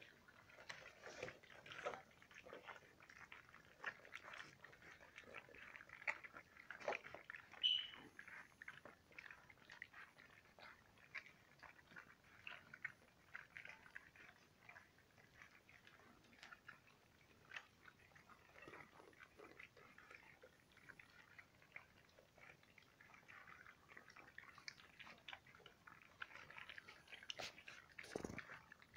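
Quiet, irregular lapping, slurping and smacking of young malamute puppies eating soft food, many small wet clicks. A brief high squeak comes about eight seconds in and a sharp knock near the end.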